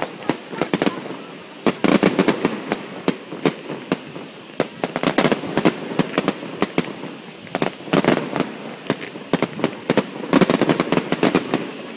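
Fireworks going off in many sharp pops, bunching into dense crackling volleys about every three seconds.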